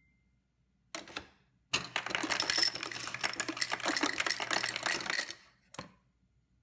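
Ice cubes clattering and rattling in the Samsung refrigerator's ice system for about three and a half seconds over a steady low motor hum, with a short rattle before it and a single click after.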